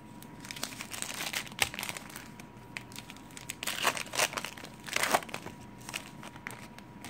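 Foil wrapper of a 2014 Topps Chrome baseball card pack being torn open and crinkled by hand, in irregular bursts of crackling that are loudest around four and five seconds in.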